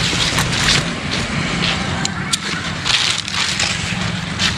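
Nylon rucksack straps and plastic buckles being handled, with a few short sharp clicks around the middle, over a steady low rumble and hiss.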